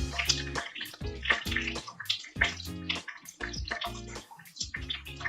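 Boiled eggs sizzling as they fry lightly in hot oil in a kadai, with background music that has a deep bass and a steady beat.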